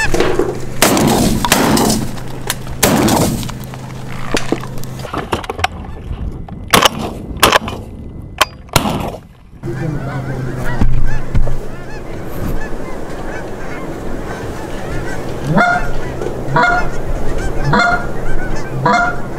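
Geese honking, repeated calls that come as a run of honks about once a second near the end. A few sharp knocks sound partway through.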